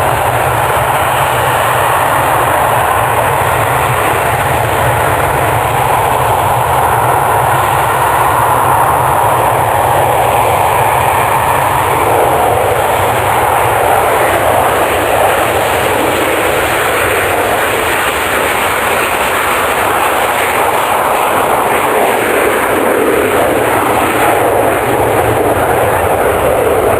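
Aircraft engine noise: a loud, steady rushing that slowly swells and shifts in pitch as the aircraft passes.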